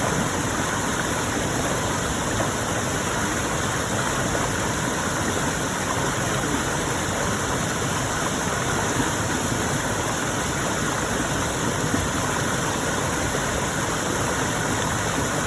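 Forest stream flowing: steady rushing and splashing of water over rocks.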